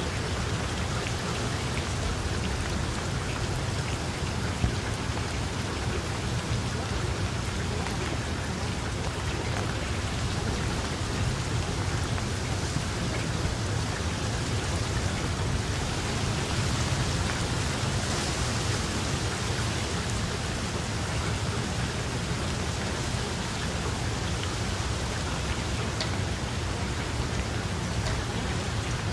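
Steady rain falling: an even hiss over a low rumble, unchanging throughout.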